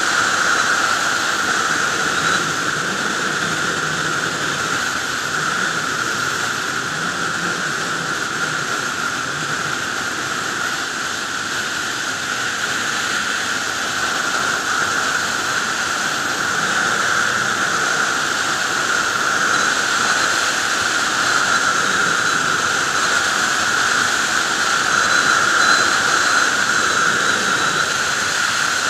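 Sport motorcycle cruising at highway speed: a steady rush of wind over the microphone mixed with the engine's drone.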